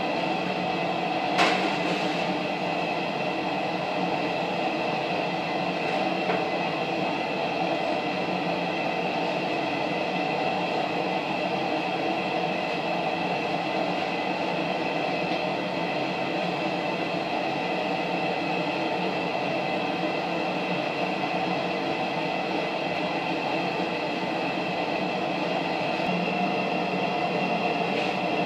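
A forge runs with a steady roar throughout. A single sharp metallic clank comes about a second and a half in.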